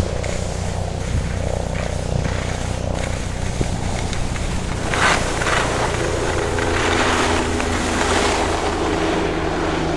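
Skis sliding and scraping over packed snow, with a steady low rumble of wind and handling on the microphone and two louder scrapes about halfway through and near the end.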